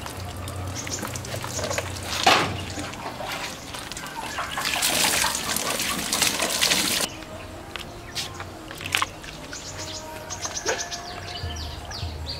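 Water poured from a plastic dipper splashing over a dead duck's feathers, in a few pours with the loudest splashing in the middle. It cuts off suddenly about seven seconds in, leaving birds chirping.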